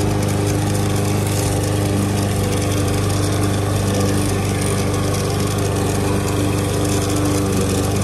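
Briggs & Stratton lawn mower engine running steadily at an even speed.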